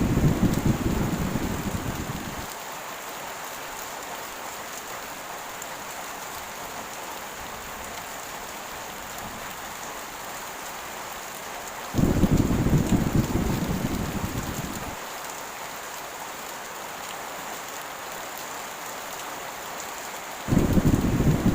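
Heavy rain falling steadily, with three deep thunder rumbles. One is fading at the start, one comes in suddenly about twelve seconds in, and another comes in near the end. Each rumble fades over two to three seconds.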